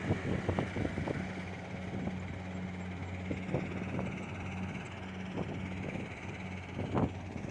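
Kubota DC70 Plus combine harvester's diesel engine running steadily as it works, with irregular short clicks and knocks over the hum and a louder knock near the end.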